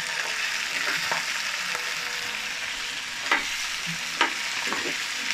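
Small cauliflower florets sizzling in hot oil in a kadhai, stirred with a steel ladle that knocks against the pan, sharply twice past the middle.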